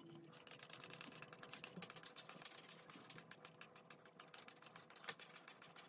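Faint rapid clicking and rattling of a black ribbed plastic antenna coil former being turned and handled, with its coax cable running through it.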